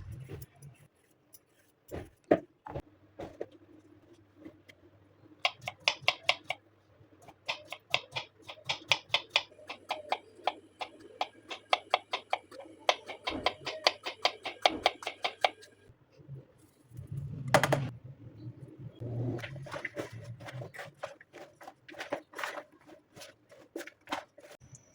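A knife chopping ridge gourd on a cutting board in quick runs of about four or five cuts a second, with short pauses between runs and a dull handling thud partway through.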